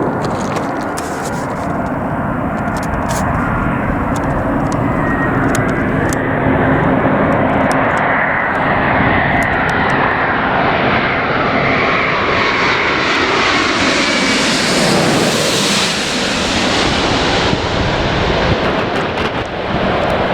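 Airliner on landing approach passing close by: its engine noise builds to its loudest about three-quarters of the way in, the pitch sliding down as it goes past, then fades. Gusty wind buffets the microphone throughout.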